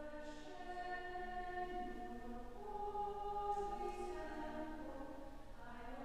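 Voices singing a slow hymn in long held notes, stepping from one note to the next: the entrance hymn that opens a Catholic Mass.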